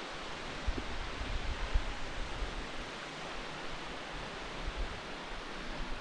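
Steady outdoor rushing hiss, with wind buffeting the microphone in low rumbles, strongest from just under a second to about two and a half seconds in.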